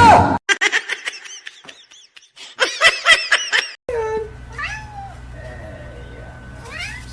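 Cats meowing: first a run of quick, high chirping mews, then a few slower drawn-out meows over a steady hum.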